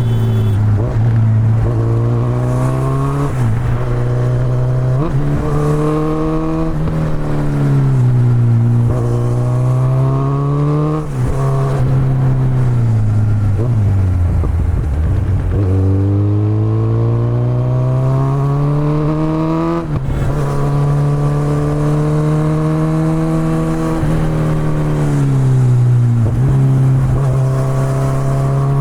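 Kawasaki Z900 inline-four through an Akrapovic exhaust, accelerating and shifting repeatedly: the engine note rises, then drops sharply at each gear change. In places the revs fall away slowly as the throttle is rolled off, then hold steady before climbing again.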